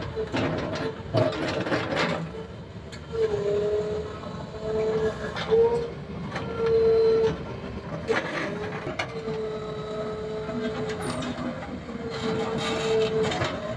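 JCB 3DX backhoe loader's diesel engine running under load, with a steady whine from the working machine that breaks off and comes back at about the same pitch. Several sharp knocks and clatters of stone against the bucket come near the start, about two seconds in, and twice more around the middle.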